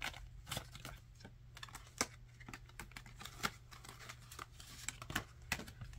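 Paper banknotes and glossy cash envelopes being handled: irregular soft rustles and light clicks as bills are counted and slid into the envelopes, with one sharper click about two seconds in.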